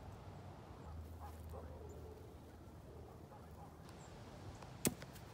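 Faint outdoor background noise with a low hum, broken by a single sharp click or knock near the end.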